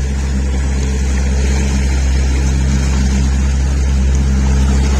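Motorboat engine running at a steady speed, an even low drone with a rushing noise over it.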